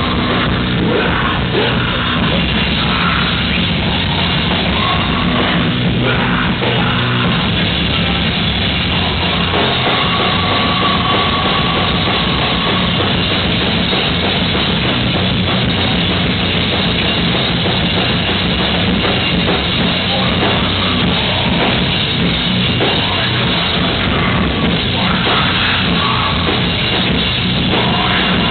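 Live rock band playing loud, with electric guitar and drum kit, continuous and without a break.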